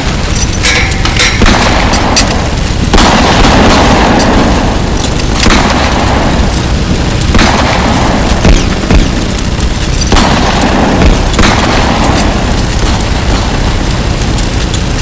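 Gunfire sound effect: a dense run of shots over a constant low rumble, with about six heavy booms that swell and die away every couple of seconds.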